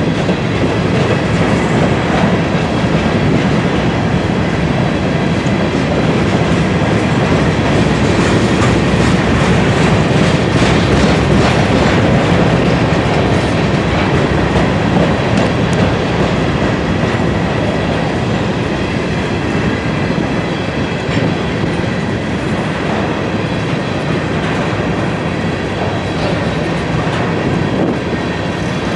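Grain train's covered hopper cars rolling steadily past, with the wheels clacking rhythmically over rail joints under a continuous rumble.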